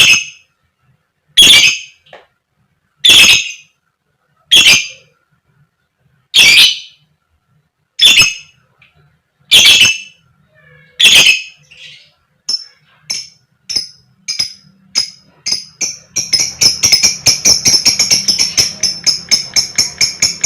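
A lovebird gives loud, sharp "koek koek" calls, eight of them about a second and a half apart. About halfway through the calls grow shorter and faster, and from about three-quarters of the way they run into a rapid, continuous chatter, the long "ngekek" of an excited lovebird.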